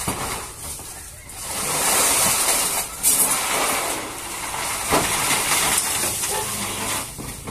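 Rushing hiss of wind through tree leaves, swelling and easing in gusts, with two sharp knocks about three and five seconds in as a roof beam is lowered.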